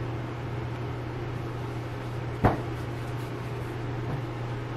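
A wooden rolling pin working flour-tortilla dough on a stainless steel worktable, with one sharp knock of wood on steel about halfway through and a fainter one near the end, over a steady low kitchen hum.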